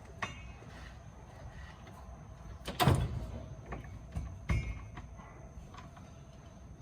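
Transmission jack carrying a Turbo 400 automatic transmission being shifted and turned under a truck: metal knocks and scraping from the jack and the transmission case. The loudest knock, with a short ring, comes about 3 seconds in, and another follows about a second and a half later.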